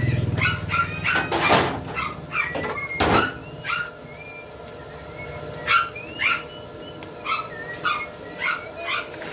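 A dog whimpering in short, high, rising cries, repeated every half second or so. Two sharp knocks come about a second and a half apart near the start.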